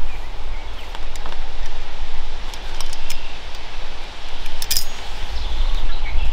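Low wind rumble on the microphone, with sharp clicks and clinks as rainfly clips are unhooked from a tent pole: a few about halfway and a quick cluster about three-quarters through.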